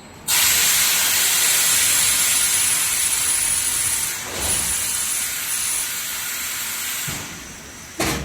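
Loud, steady hiss of compressed air from the pneumatics of an automatic mattress tape edge machine. It starts abruptly, dips briefly about halfway through and fades out near the end, followed by a short sharp burst of air.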